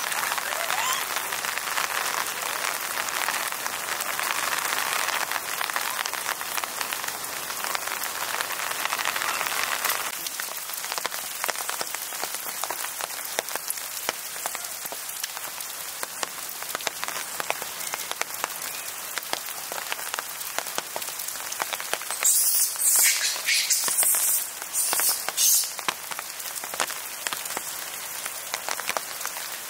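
Steady rain pattering on foliage and surfaces, with a dense patter of individual drops. It is heavier for the first ten seconds or so, then lighter. A few brief, louder hissing bursts come about two-thirds of the way through.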